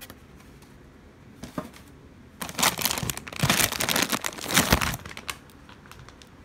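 Plastic wrappers of frozen food packets crinkling as they are handled: one short crinkle about a second and a half in, then a dense burst of crinkling lasting about two and a half seconds.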